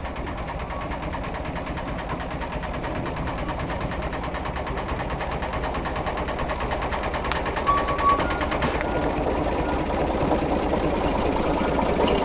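Small diesel engine of a narrow-gauge locomotive running with a fast, even chug, growing steadily louder. A short high squeak comes about eight seconds in.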